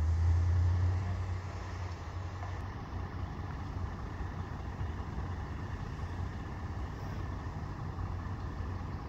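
Steady low rumble of idling emergency vehicle engines, a little louder for about the first second.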